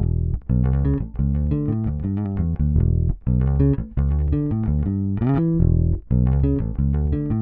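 Fender Precision Bass played solo, a busy rhythmic line of short plucked notes with brief gaps between phrases.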